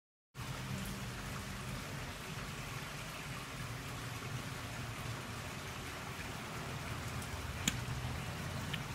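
Steady hiss with a faint low hum on a phone line, starting abruptly just after the start and broken by a single sharp click near the end.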